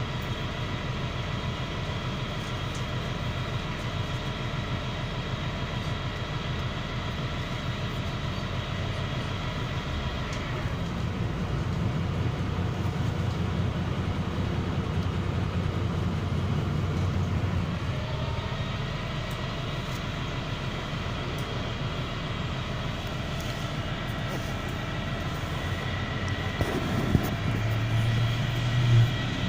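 Inside a MAZ-103.075 city bus on the move: the engine and road rumble run steadily, with steady whining tones over them, growing louder for several seconds around the middle. A single sharp knock comes near the end.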